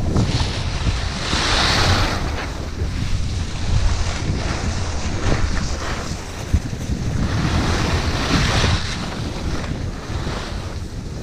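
Rushing wind buffeting the microphone during a downhill ski run, with the hiss of skis carving and scraping over packed snow that swells twice on the turns.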